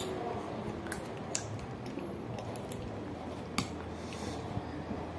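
A handful of light, sharp clicks and taps of cutlery and dishes being handled during eating, scattered over a steady low hum.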